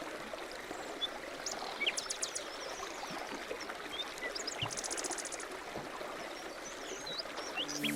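Running water of a stream, a steady rushing, with small birds giving short high chirps and a quick trill over it.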